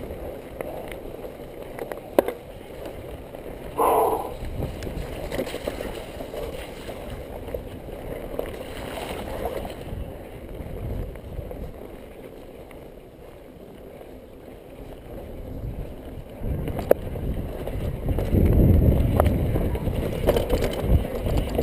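Yeti mountain bike rolling fast down a dirt singletrack: tyre roar on earth and stones mixed with wind rumbling on the chest-mounted microphone, with occasional sharp knocks from the bike. It grows louder and rougher near the end as the trail turns rocky.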